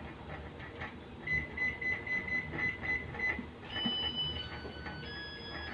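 Electronic alarm beeping: a rapid run of short high beeps at one pitch, about five a second for two seconds. It is followed by a string of held electronic tones stepping between different pitches.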